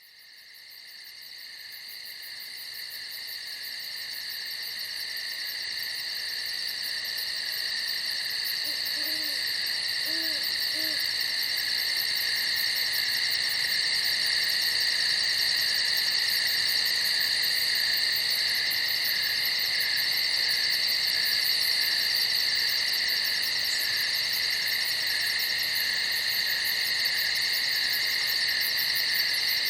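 A steady, unbroken chorus of night crickets trilling, fading in from silence over the first several seconds. Three brief low calls sound faintly beneath it about nine to eleven seconds in.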